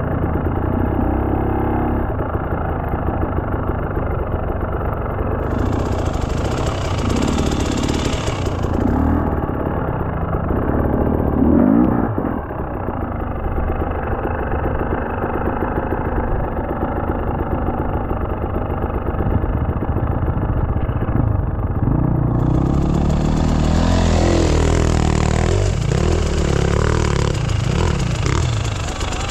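Enduro motorcycle engine running and revving, its pitch rising and falling under changing throttle, with its loudest surge about twelve seconds in.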